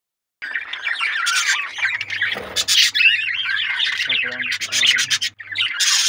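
Budgerigars chattering and squawking, a busy, fast-warbling run of calls that starts about half a second in, with sharp scratchy clicks mixed in.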